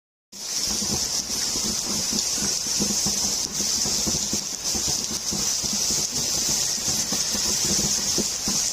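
Heavy rain falling as a steady hiss, with uneven low rumbling beneath; it starts abruptly just after the beginning.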